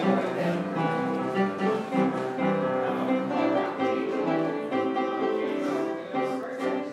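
Instrumental background music with guitar and strings.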